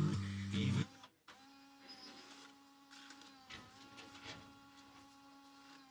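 Music from the Sony CDX-GT200 car stereo cuts off about a second in. After that comes a faint steady mechanical whir with a few soft ticks, like the CD drive spinning and seeking.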